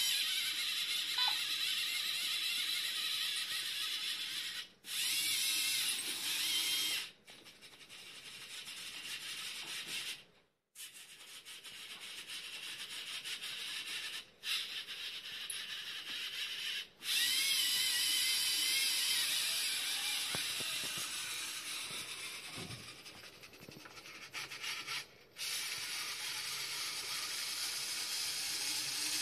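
LEGO EV3 motors and plastic gearing of a robotic arm whirring as the arm moves, with a whine that rises and falls in pitch as the motors change speed. The whirring stops abruptly and starts again several times.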